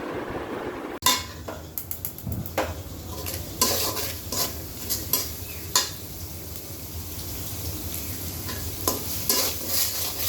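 Helencha greens stir-frying in a pan: a steady sizzle, with a spatula scraping and knocking against the pan at irregular moments. The first second holds a different steady noisy rush before the frying starts.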